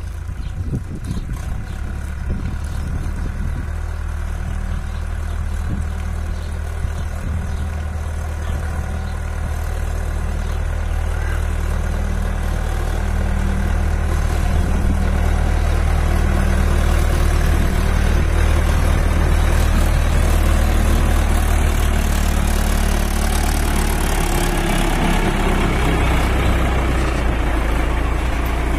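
Indo Farm 3055 NV 55 hp tractor's diesel engine running steadily under load while pulling a fully loaded trolley. It grows louder from about halfway through, and its note shifts lower near the end.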